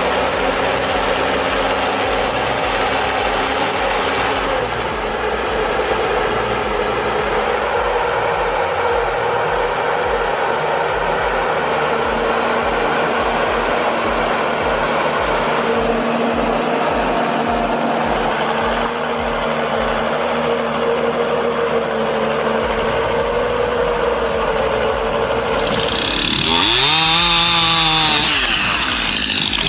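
An engine running hard at a steady high pitch. Near the end its pitch sweeps up and back down once.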